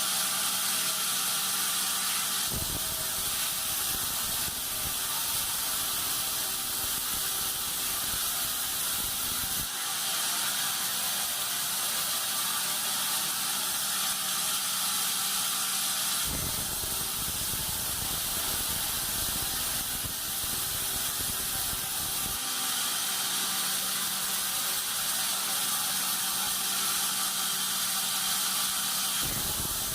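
Band sawmill running with a steady high hiss. A heavier rumble comes in for several seconds at a time, starting about two and a half seconds in, again near the middle and once more at the very end; between these stretches a steady hum shows through.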